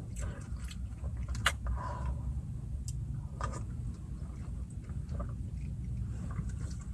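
Drinking from a small plastic cup, with faint sips, swallows and light plastic clicks, over the steady low hum of a car's interior.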